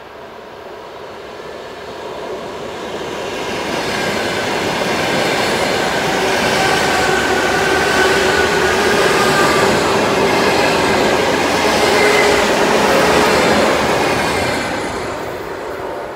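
Electric multiple unit (suburban electric train) passing at speed: the rumble and rattle of its wheels on the rails build as it approaches, are loudest for several seconds as the cars go by, then fade near the end.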